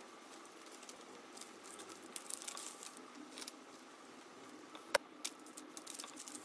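Faint handling sounds of a cake slice being lifted with a metal cake server and set into a paper cake liner: light rustling of paper and small taps, with one sharp click a little before five seconds in. The sounds are sped up to double speed.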